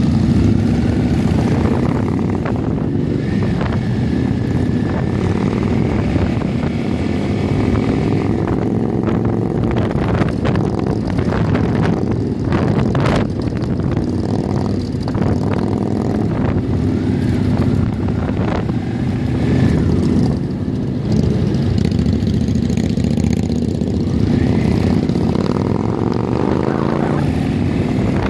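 Motorcycle engines running on the move, heard from on board a riding bike. The pitch rises and falls again and again as the bikes accelerate, shift and ease off.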